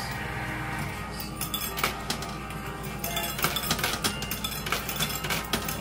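Quarters clinking in a coin pusher machine as they drop onto and are shoved across its playfield: a patter of small metallic clicks, busier from about three seconds in, with music in the background.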